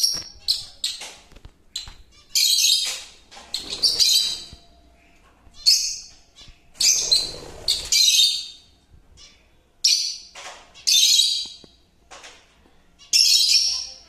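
Peach-faced lovebirds chirping: shrill, high-pitched calls in bursts of about a second, repeated every second or two with short quiet gaps between.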